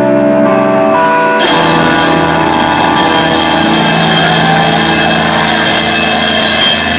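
Loud live rock band. Distorted electric guitar notes step in pitch, then about a second and a half in the drums and cymbals crash in with the whole band on a long, held, ringing chord.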